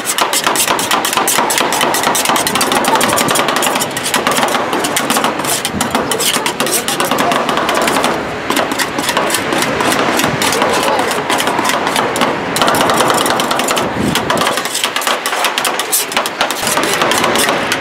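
Two metal spatulas chopping and tapping rapidly on a rolled ice cream cold plate, a fast, continuous metallic clatter. The ice cream base is being chopped and mixed as it freezes on the plate.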